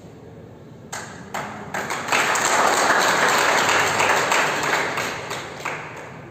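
Audience applause: a few single claps about a second in, building quickly into a burst of clapping that dies away near the end.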